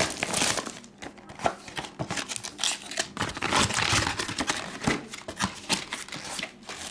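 Clear plastic shrink wrap being torn off a cardboard trading-card box and crumpled, an irregular crinkling and crackling with many sharp clicks.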